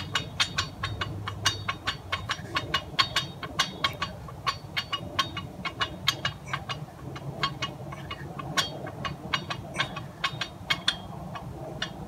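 Empty 45 lb barbell being benched for fast, continuous reps: rapid, irregular metallic clicks and clinks from the bar and bench, several to a second, over a steady low background rumble.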